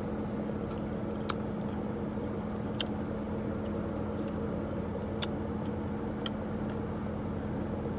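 Car idling, a steady hum heard from inside the cabin, with its air conditioning running, and a few short sharp clicks scattered over it.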